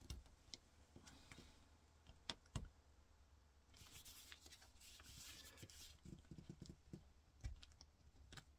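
Faint scraping of an X-Acto craft knife blade shaving out a hole in a small plastic cap, with a few light clicks of the blade against the plastic.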